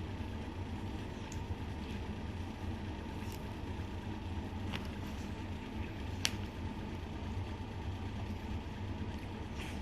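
Low, steady hum of a car engine idling, heard from inside the cabin, with a few faint clicks and one sharper tap about six seconds in.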